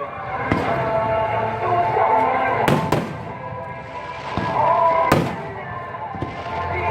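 Fireworks bursting in the sky: several sharp bangs, two of them close together about three seconds in, over music playing throughout.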